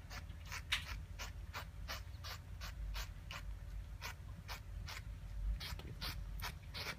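A cat intoxicated on silver vine making quick, rhythmic rasping sounds, about three a second, over a low rumble.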